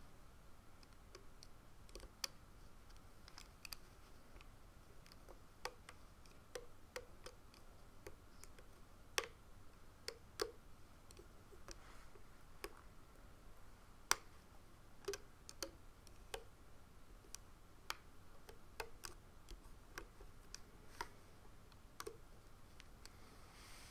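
Faint, irregular small clicks of a Rainbow Loom hook and rubber bands against the loom's plastic pins as bands are looped, about one or two clicks a second.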